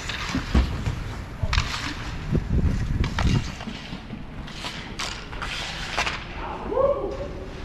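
Outdoor roller hockey play: irregular clacks and knocks of sticks and puck on the rink over the low rumble of skate wheels rolling.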